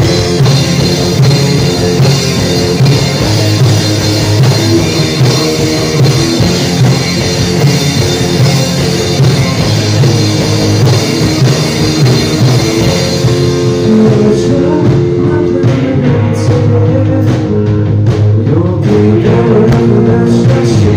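Live rock band playing loud: electric guitars, bass and drum kit. About two-thirds of the way through, the bright high wash drops out, leaving guitars and bass with sharp drum hits.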